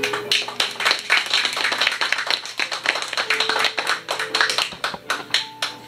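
A small audience applauding by hand, with dense, uneven claps that thin out to scattered single claps near the end.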